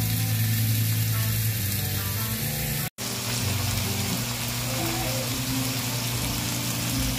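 Sirloin steaks sizzling as they sear in olive oil in a hot cast iron pan, under background music. The sound cuts out for an instant about three seconds in.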